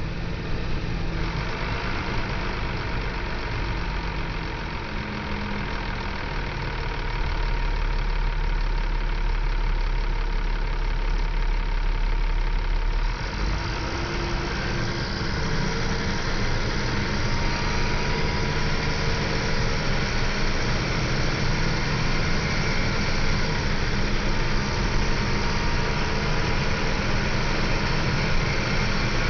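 Scania L94UB bus's five-cylinder diesel engine running steadily, its low engine note shifting about thirteen seconds in.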